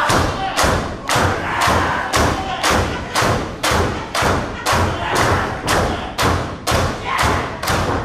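Audience clapping in unison, a steady beat of about two claps a second, rallying a wrestler caught in a hold.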